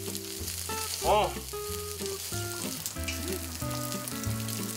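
Meat sizzling on a hot grill pan, a steady high hiss, over soft background music. A short voice-like sound about a second in.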